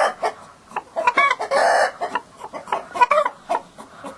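Chickens clucking: a few short calls, with a harsher, noisier squawk about a second and a half in.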